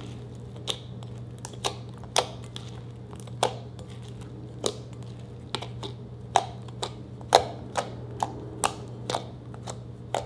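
Fingertips poking into soft glitter slime in a glass bowl, making a string of sharp, irregular pops, about one or two a second, over a steady low hum.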